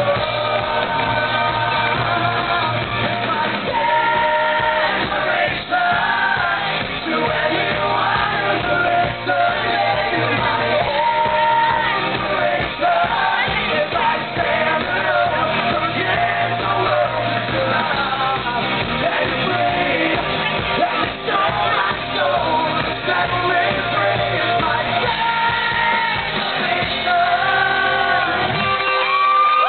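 Live rock band playing, a male lead singer singing over electric guitar and drums.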